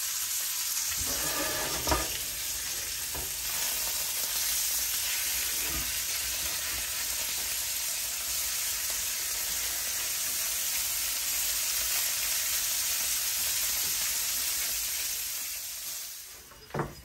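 Wild pig bacon sizzling steadily as it fries in a cast-iron skillet, with a few clinks and scrapes of a utensil turning the strips. The sizzle fades near the end.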